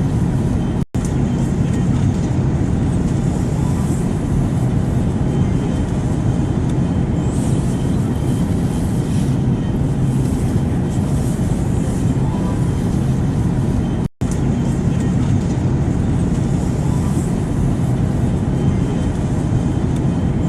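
Airplane noise: a steady, loud rushing drone with a low hum underneath, dropping out for an instant about a second in and again after about fourteen seconds.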